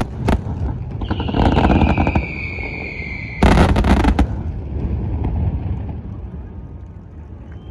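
Aerial fireworks shells bursting: a sharp bang, then crackling with a long whistle that falls in pitch. About three and a half seconds in comes a loud burst with dense crackle, then the sound dies away.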